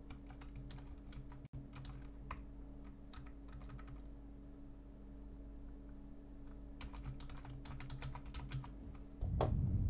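Computer keyboard typing in two runs of quick keystrokes a few seconds apart, over a steady low hum. A louder low thud comes just before the end.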